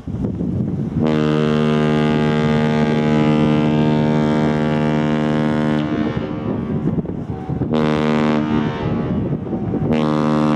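A deep ship-salute air horn blows one long blast of about five seconds, then two short blasts: the long-short-short master's salute given as a laker departs through the ship canal.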